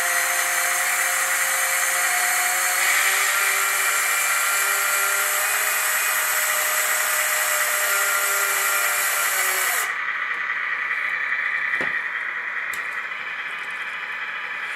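Small electric lift motor of an RC dump truck whirring steadily as it raises the dump bed, then cutting off sharply about ten seconds in. A couple of light clicks follow.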